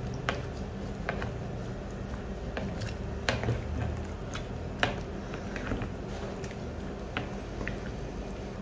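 Raw chicken pieces being turned through thick, wet spice paste in a glass bowl with two slotted spatulas: soft squelching broken by irregular clicks and taps as the utensils knock against the bowl. A low steady hum runs underneath.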